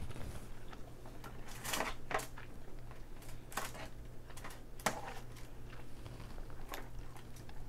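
Irregular small clicks and crackles of cooked king crab leg shells and foil being handled as meat is picked out, with chewing.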